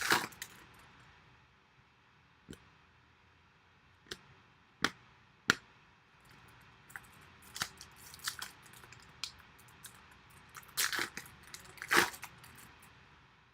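Stiff chrome trading cards being handled and sorted through, giving scattered sharp clicks and short rustles, with thicker clusters of them late on.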